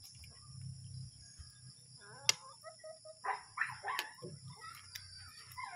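A metal spoon clinking sharply against an aluminium cooking pot three times, the first clink the loudest, with short pitched animal calls in between.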